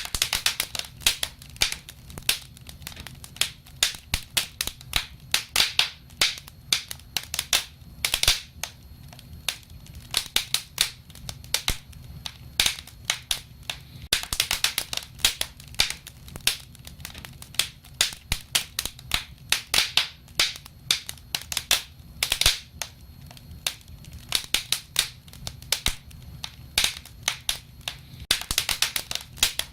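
Wood fire crackling: irregular sharp snaps and pops, thickening into quick flurries a few times, over a faint low rumble.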